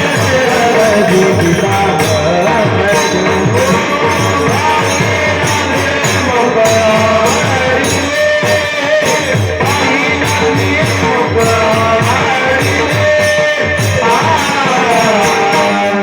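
Devotional bhajan music: a fast, steady jingling of hand cymbals over a regular drum beat, with voices chanting a gliding melody.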